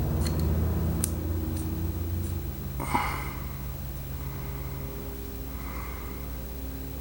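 Light clicks and taps of small metal knife parts being handled, with one brighter, slightly ringing clink about three seconds in, over a low steady hum.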